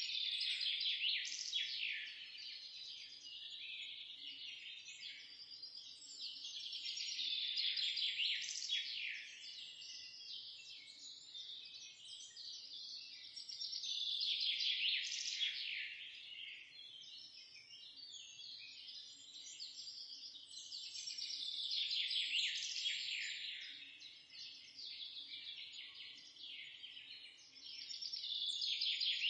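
Chorus of small birds chirping and twittering together in a dense, high-pitched stream that swells and fades about every seven seconds.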